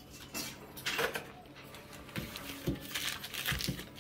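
Paper wrapper of a block of butter rustling as it is handled and opened, with a few soft knocks on the kitchen counter in the second half.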